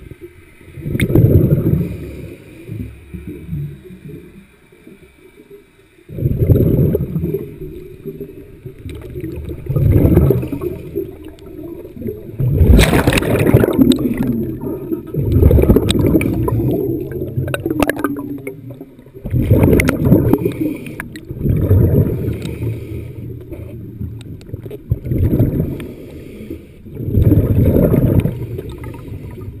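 Muffled underwater sound of water churning around a submerged camera. Low surges swell every few seconds, and a louder bubbling rush comes about halfway through.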